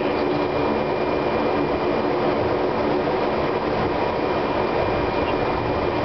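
Fokker 50's twin turboprop engines and propellers at low taxi power, heard from inside the cockpit: a steady drone with a faint high whine.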